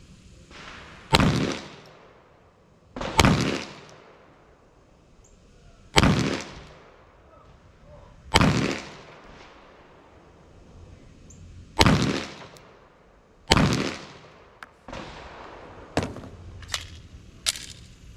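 A semi-automatic pistol firing six single shots, about two to three seconds apart, each with a short echoing tail. Near the end come a few fainter sharp clicks.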